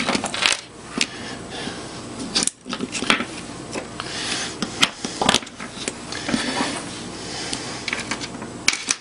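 Alligator-clip leads being unclipped and LED boards lifted away by hand: a series of small metallic clicks and clinks with wire-handling rustle in between.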